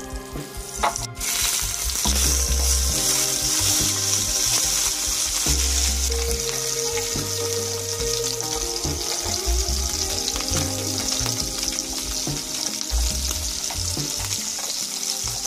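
Chicken drumsticks sizzling steadily as they fry in hot oil and butter in a wok. The sizzle jumps up suddenly about a second in as the chicken goes into the pan, with occasional clicks of metal tongs turning the pieces.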